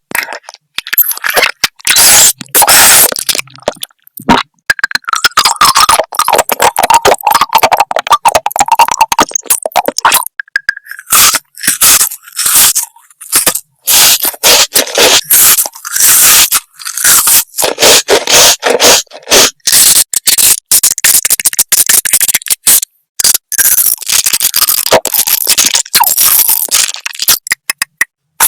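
Eating sounds: crunchy food being bitten and chewed, with crackling and scraping in rapid, irregular bursts.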